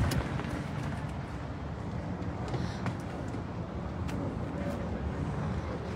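Steady low drone of a motor running in the background, with a few light clicks.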